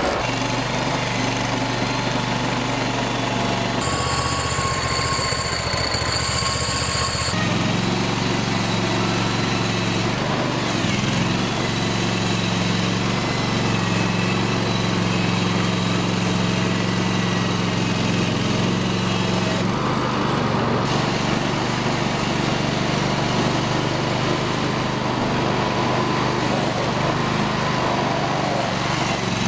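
Small gasoline engine of a Hudson Warrior portable band sawmill running steadily while milling a log into boards, its tone changing abruptly a few times.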